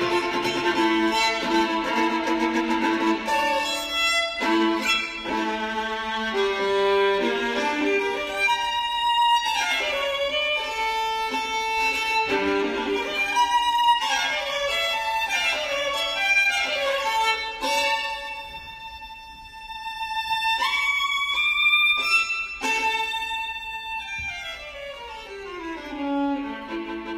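Violin playing a melody with changing notes and slides between them, a softer held note just past the middle, and a quick descending run near the end.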